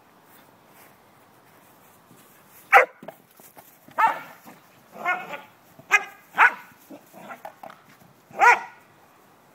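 Blue heeler (Australian cattle dog) barking while herding a ball: about six single barks, spaced irregularly, starting about three seconds in, with a few fainter yips between the later ones.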